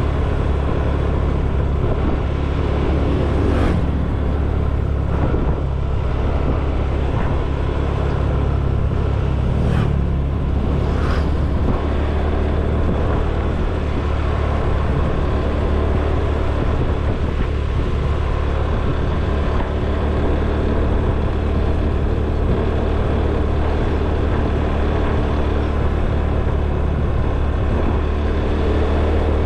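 Motor scooter engine running while riding, with road noise: a steady low hum, briefly rising in pitch about a third of the way through.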